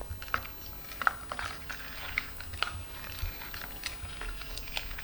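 Spoon stirring a thick glue slime mixture in a bowl, making irregular light clicks and scrapes.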